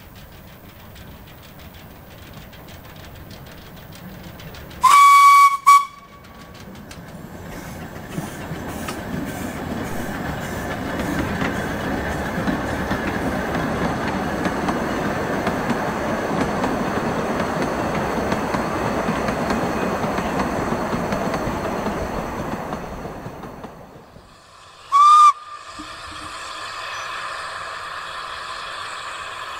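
Narrow-gauge steam locomotive giving one loud, shrill whistle blast of under a second, then its train running past, the rumble of carriage wheels on the rails building up, holding for about ten seconds and fading away. About 25 seconds in comes a second, shorter whistle blast from a locomotive further off.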